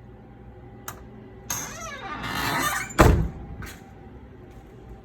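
A squeaky scraping sound that grows louder over about a second and a half, then a heavy thump and a lighter click.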